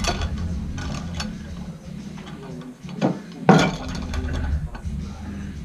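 Sharp metallic clanks and clinks from a loaded grip implement, a vertical pin with weight plates, as it is gripped and worked; four knocks in all, the loudest about three and a half seconds in, over a steady low hum.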